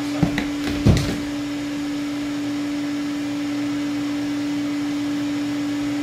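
Wall-mounted wet/dry shop vacuum running with a steady hum, its hose sucking up bees. A few sharp knocks in the first second or so, then the steady running continues unchanged.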